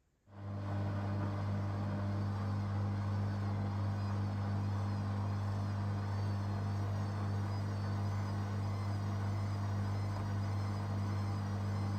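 Beko washing machine's drain pump switching on abruptly and running with a steady, loud low hum.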